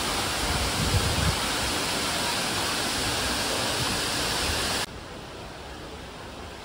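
Waterfall pouring down a plant-covered wall: a steady rush of falling water. It cuts off abruptly nearly five seconds in, leaving a fainter steady hiss.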